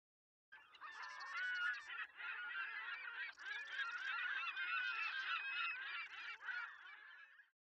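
A flock of birds calling over one another in a continuous, overlapping chorus of honking cries, which starts and stops abruptly.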